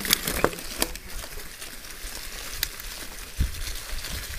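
Mountain bike rolling through long grass: a continuous crackling swish of grass against the tyres and frame, with sharp clicks and rattles from the bike over bumps, one near the start and two more later, and a low thump a little after three seconds.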